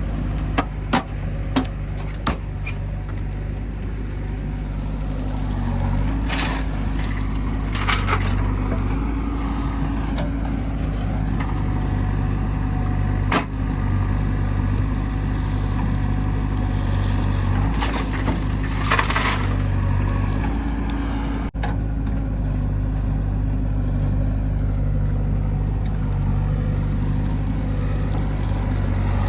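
Diesel engine of a JCB 3DX backhoe loader running while it works loading mud, picking up in speed and loudness about six seconds in. Occasional sharp knocks and clatters and a few short hissing swells sound over it.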